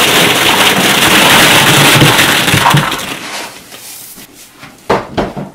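Hollow plastic ball-pit balls pouring out of a bag onto a couch, a loud dense clatter that dies away after about three seconds. A few sharp clacks of the balls follow near the end.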